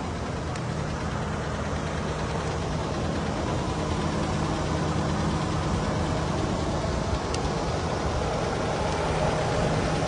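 Engine idling steadily: a low, even hum under a constant hiss.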